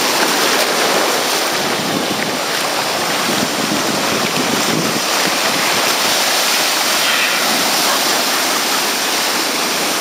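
Ocean surf: waves breaking and washing over the shallows in a steady, continuous rush.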